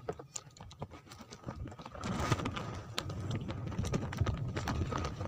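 Rapid, irregular clicks and rattles of a spinning reel and rod being handled for a cast, getting louder with a low rumble of handling noise from about two seconds in.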